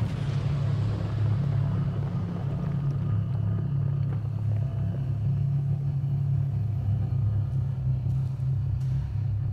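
A steady deep rumble that runs on without breaks.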